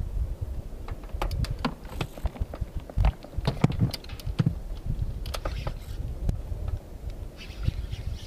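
Irregular clicks and knocks of rod-and-reel handling on a boat deck as a hooked bass is set and reeled in, over a low rumble of wind and water on the microphone. A brief hiss comes near the end.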